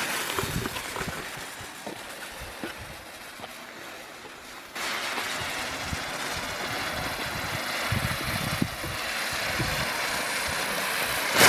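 Lesli Destruction Disc ground firework burning: a fizzing fuse, then about five seconds in it flares into a louder, steady hissing with small crackles, burning the way it is supposed to. A sharp crack comes right at the end.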